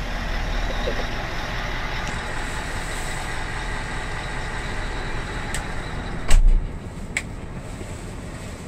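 Scania R 580 windscreen washer and wipers switched on, running with a steady spraying and wiping noise for about six seconds, which ends with a loud thump, over the V8 engine idling. The washer fluid level is low.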